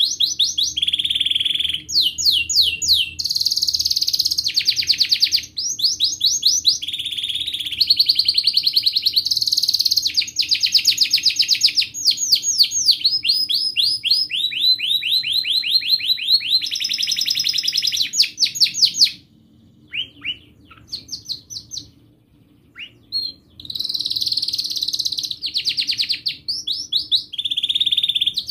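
White domestic canary singing a long, almost unbroken song of fast trills and rolling phrases. Past the middle it breaks off for about four seconds into a few short, scattered notes, then takes up the song again.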